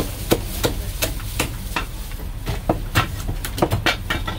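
Chinese cleaver chopping a roast goose on a thick wooden chopping block: a run of sharp chops at an uneven pace, coming faster in the last second or so.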